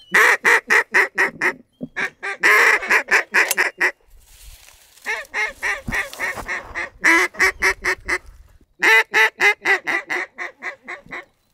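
Hand-held reed duck call blown in four runs of quacks, each run starting loud and tapering off in volume: duck-calling to bring birds in over the decoys.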